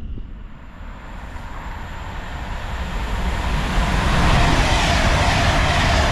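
Avanti West Coast express train approaching and passing through the station at speed: a rushing noise that builds over about four seconds, then holds loud and steady as the carriages go by.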